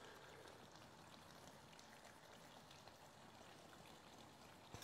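Near silence: a faint, even hiss of room tone.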